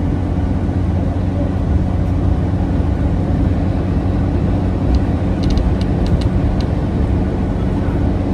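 Inside a 2011 New Flyer C40LF CNG transit bus under way: a steady low drone of its natural-gas engine mixed with road noise. A few faint clicks come a little past halfway.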